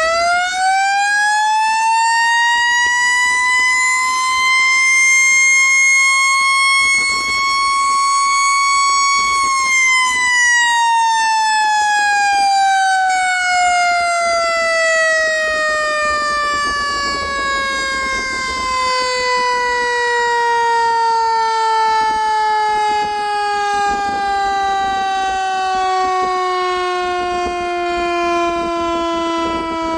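Electromechanical air raid siren sounding one tone. It winds up to a high wail, peaks about nine seconds in, then falls slowly and steadily in pitch as the rotor coasts down after being cut.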